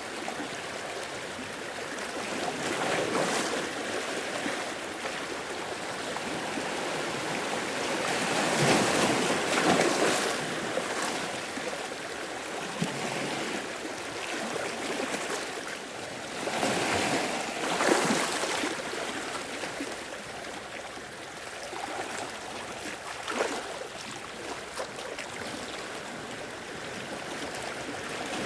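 Sea waves washing in and draining back over rocks, heard from inside a sea cave: a steady wash with louder surges rising and falling every few seconds, strongest about a third of the way in and again a little past halfway.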